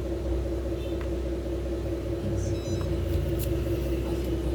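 1/14-scale LESU Hino 8x8 RC dump truck running: a steady hum with a constant low rumble beneath it.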